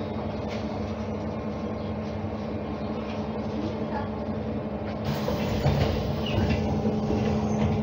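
Interior ride noise of a BKM trolleybus with its doors shut: a steady electric hum with one constant low tone, over running noise and small rattles of the body. The noise grows louder about five seconds in.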